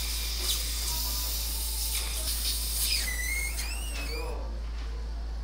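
Dental surgical suction tip hissing with thin, wavering whistles as it draws air and fluid at the surgical site. The hiss cuts off sharply about four seconds in, and a steady low hum runs underneath.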